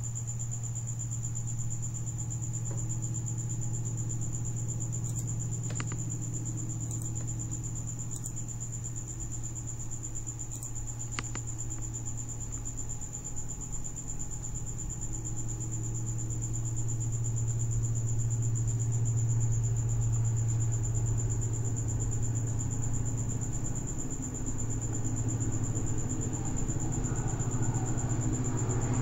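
Steady low background hum with a constant thin high-pitched whine above it, growing a little louder in the second half, with a few faint clicks.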